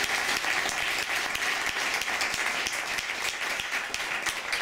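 Audience applauding: steady clapping from many hands. It thins out just after the end.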